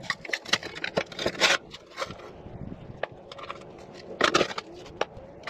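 Ironstone rock being crushed and ground in a bench vise with a metal bar: gritty crunching and scraping with scattered clicks and knocks, loudest in two short bursts, about one and a half seconds in and just after four seconds.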